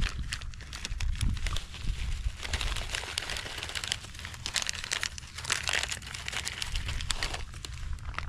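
A small plastic snack packet of peanuts crinkling and rustling in the hands as the peanuts are shaken out onto a plate, loudest in the middle while the pouring goes on.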